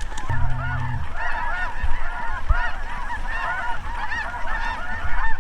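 A large mixed flock of geese calling: many short, overlapping honks and cackles. A brief low hum sounds near the start.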